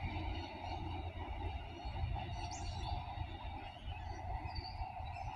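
Low rumble of Adelaide 3000/3100 class diesel railcars pulling away into the distance, with a few bird chirps over it.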